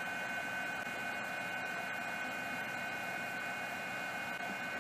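Steady electrical hum and hiss with a high, unchanging whine, with no other events.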